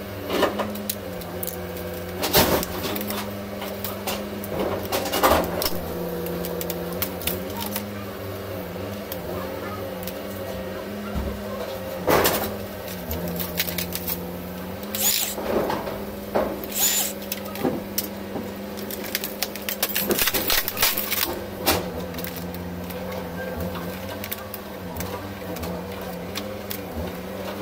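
Irregular clicks, knocks and clatter of laptop parts being handled and taken apart by hand, over a steady droning hum.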